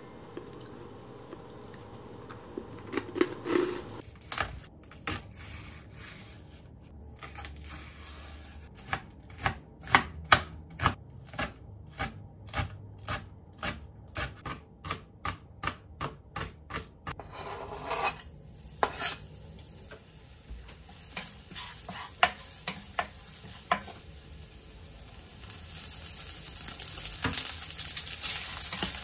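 Kitchen knife chopping green onion on a plastic cutting board in a steady rhythm, about two cuts a second. Near the end the diced ham and green onion start sizzling in a frying pan as a wooden spatula stirs them.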